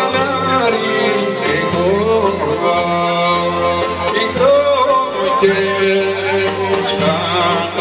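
Live Greek folk music: a wavering, ornamented melody line over steady bass notes and an even percussion beat.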